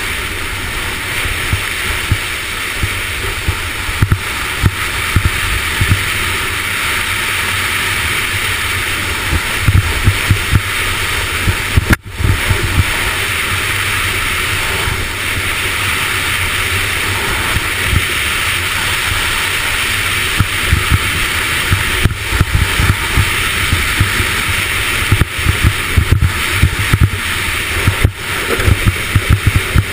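Skeleton sled sliding fast down an ice bob run, heard from a camera mounted on the sled: a loud, steady rushing scrape of the steel runners on ice, with frequent knocks and jolts as the sled rides the track. The sound cuts out briefly about twelve seconds in.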